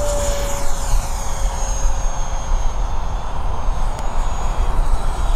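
Radio-controlled model jet taking off and climbing away: a steady rushing noise with a high whine, its pitch falling as the jet passes and pulls away.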